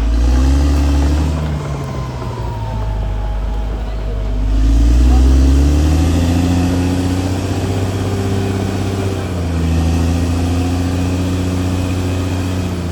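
Diesel engine of a CAT D6R XL bulldozer running under load, its pitch rising and falling several times as the engine revs up and eases off.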